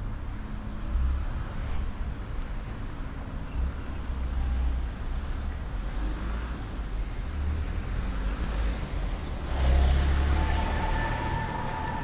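A low, traffic-like rumble that swells and falls back several times, loudest a little before the end. A steady high tone joins it about ten seconds in.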